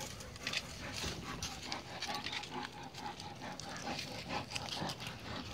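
An animal's sounds: a quick, irregular run of short noises, several a second.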